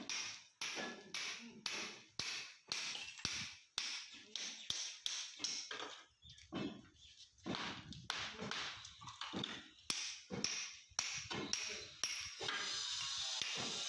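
Hand hammer striking again and again on a brick pedestal, chipping off its old stone cladding: sharp knocks at an uneven pace of about one to two a second. Near the end the blows give way to a steadier, rasping noise.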